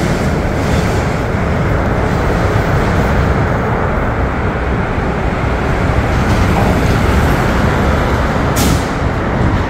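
Steady, loud rumble of motor traffic on the Queensboro Bridge roadway.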